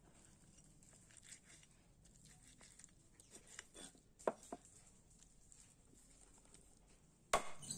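Faint cutting of raw rooster meat off the bone with a cleaver on a wooden chopping board: soft scrapes and light ticks of the blade, with a sharper tap about four seconds in and a louder knock near the end.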